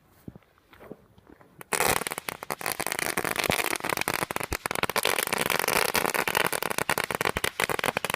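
A small Category 1 firework going off in a dense, rapid run of crackles that starts just under two seconds in and lasts about seven seconds.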